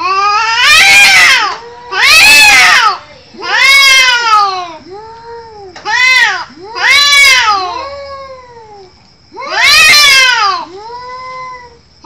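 Two domestic cats yowling at each other in a face-off: about six loud, drawn-out wails that rise and then fall in pitch, with quieter, lower wails in between. This caterwauling is the threat display of a cat standoff.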